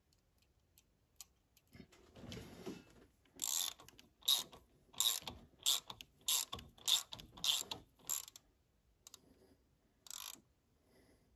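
A socket ratchet clicking in a run of about nine short strokes, close together, with one more stroke near the end.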